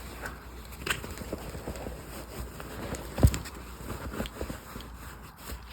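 A bag being handled: scattered light rustles and taps, with one louder knock about three seconds in.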